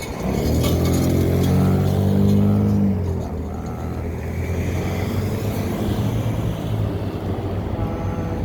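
A motor vehicle passing close by with a low engine drone, loudest over the first three seconds, then fading into steady street traffic noise.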